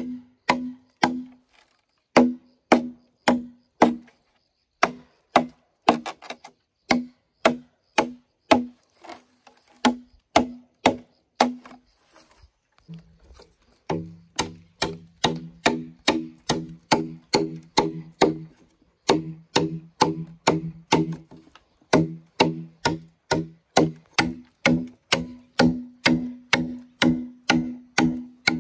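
A blade chopping into bamboo, strike after strike at about two to three a second, each blow making the hollow culm ring with a short pitched tone. Two brief pauses break the run, and after the second the ring drops lower.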